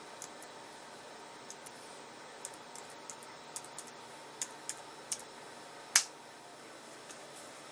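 Keys tapped one at a time on a computer keyboard, a dozen or so light, irregular keystrokes as a password is typed in, with one louder click about six seconds in.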